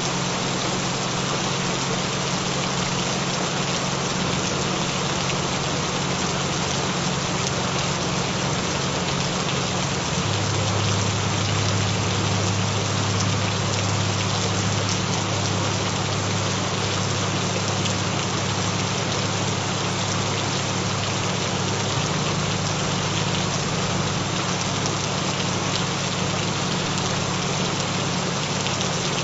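Steady rain sound with several low, steady tones beneath it, the 'frequencies' of a binaural affirmation track. The low tones shift twice, about ten seconds in and again about twenty-two seconds in.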